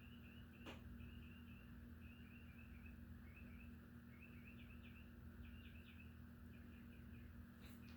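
Hampton Bay Huntington III ceiling fan running with a faint, steady low hum. Irregular high chirps run through it, and there is a single click less than a second in.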